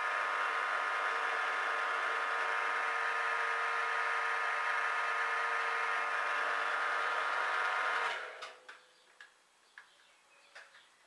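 Warco Major GH geared-head milling machine running, spindle turning, a steady machine whine made of many tones. It cuts off about eight seconds in, followed by a few light clicks and taps.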